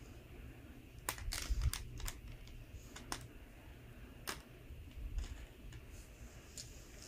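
Small plastic balls of a toy pool table clicking against each other and the plastic rack as they are set into the triangle by hand: a quick cluster of clicks about a second in, then single clicks every second or so, fainter near the end.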